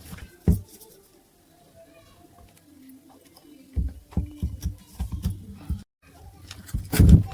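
A run of irregular knocks and taps from hard objects being handled, with one loud thump near the end.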